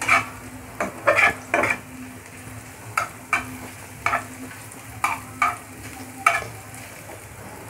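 Chopped onions frying in oil in a pan, stirred with a metal spatula: about ten irregular strokes of the spatula against the pan over a faint, steady sizzle.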